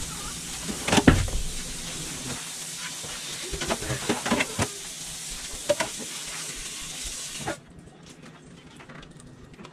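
Steady hiss of moisture steaming off a hot electric wok, with a sharp knock about a second in and light knocks and scrapes as the pan is wiped with a paper towel. The hiss cuts off suddenly near the end.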